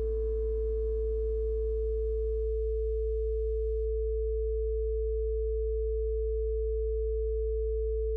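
Steady synthesized sine tones: a low 55 Hz drone under a higher held tone, unchanging in pitch. Soft electric-piano notes fade out in the first few seconds, leaving only the tones.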